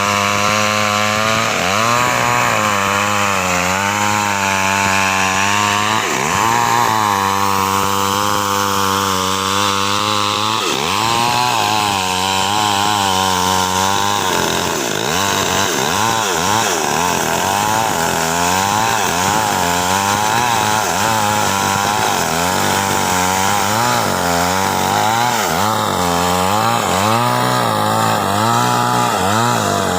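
Two-stroke chainsaw running under load through wood, its engine pitch dipping and recovering over and over as the chain bites. The wavering quickens after about halfway.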